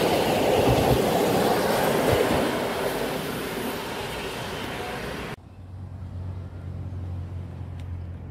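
PKP Intercity passenger coaches rolling past on the rails, loud at first and then fading as the end of the train draws away. About five seconds in, the sound cuts off abruptly, leaving a quieter low steady hum.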